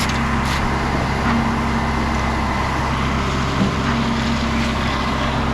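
Heavy diesel truck engine running steadily, as concrete trucks do through a pour.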